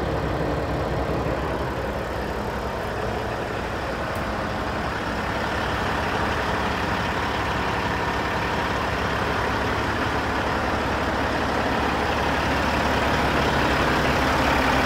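Kenworth W900 glider's Caterpillar diesel engine idling steadily, growing a little louder near the end.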